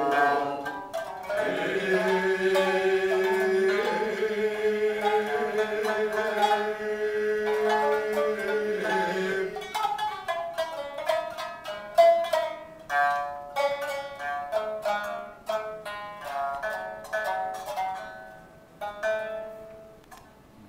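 Utazawa music: voices hold long sustained notes over plucked shamisen for the first half, then three shamisen play on alone in a run of crisp plucked notes that thins out and dies away near the end, closing the piece.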